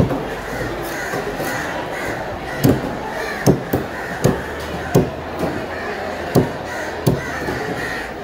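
Heavy cleaver chopping a garfish into steaks on a wooden chopping block: a run of sharp thuds, one every half second to a second, starting about a third of the way in, over a steady background noise.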